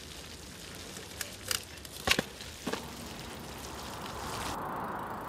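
Steady splashing of a small fountain's water jets, with a few sharp clicks in the middle, the loudest about two seconds in. The splashing cuts off abruptly near the end, as the sound of an approaching vehicle swells.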